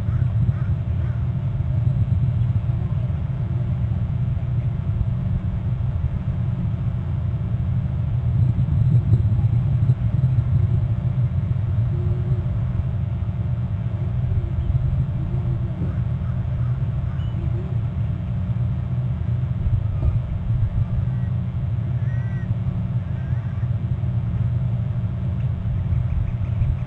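Steady low rumble throughout, with a few faint short calls or chirps above it.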